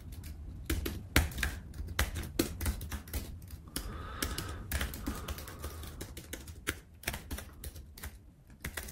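Typing on a computer keyboard: irregular keystroke clicks, some in quick runs, with short pauses between.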